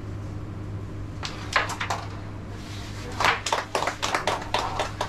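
A carrom striker is flicked across the board, giving a quick run of sharp wooden clicks as it strikes the carrom men and a coin is pocketed. About three seconds in, several people start clapping in a short burst, over a steady low hum.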